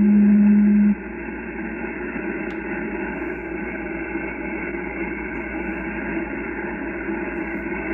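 Yaesu FTDX10 receiving 11-metre CB on lower sideband: a steady low tone from the speaker cuts off about a second in, leaving even static hiss between transmissions.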